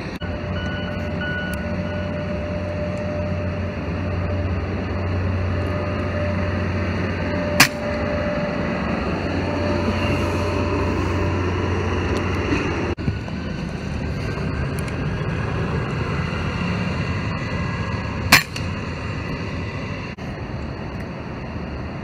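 Two shots from an FX Dreamline Lite .177 PCP air rifle, each a single sharp crack, about eleven seconds apart, over a steady low mechanical hum.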